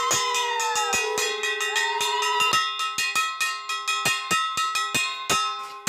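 Brass puja hand bell rung steadily, about four strikes a second, with the metal ringing on between strikes. A separate high gliding tone sounds over it in the first half.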